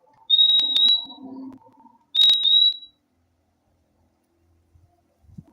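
Purple-throated euphonia (fim-fim) calling: two double whistles, "fim-fim", each a pair of clear high notes on one steady pitch, about two seconds apart.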